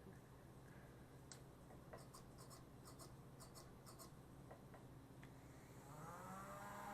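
Faint, scattered small clicks and scratches from a vintage Tyco pipe loader being worked, over a low steady hum. Near the end a faint whine comes in, its pitch bending up and down.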